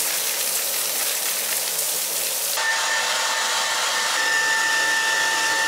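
Water spraying from an overhead shower head, a steady hiss. About two and a half seconds in it switches suddenly to a hand-held hair dryer running, a steady blowing with a constant whine.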